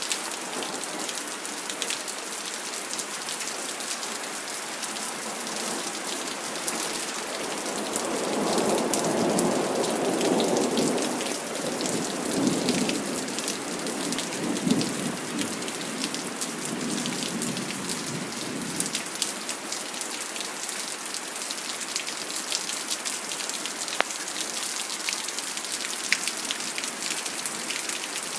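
Steady rain falling on a wet paved terrace and swimming pool, with the fine patter of countless drops. A long, low roll of thunder swells in about eight seconds in, peaks soon after and fades out by about nineteen seconds.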